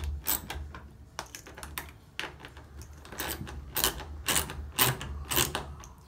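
Ratchet tool clicking in quick, uneven runs as it tightens the mounting screws of a washing machine's water inlet valve; the clicks come thickest in the second half.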